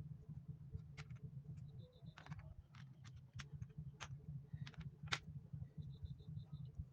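Irregular clicks and taps of plastic computer keyboard keys being worked over during cleaning, over a low steady hum.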